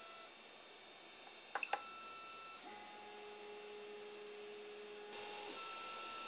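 Creality CR-10S stepper motors whining at steady pitches as the print head is driven between the bed-levelling points; the pitch jumps from one steady tone to another with each leg of travel. A few sharp clicks come about a second and a half in.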